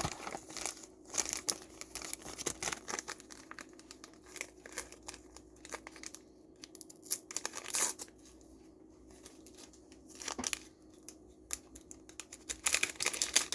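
Plastic or paper packaging being handled, crinkled and torn open by hand in irregular bursts.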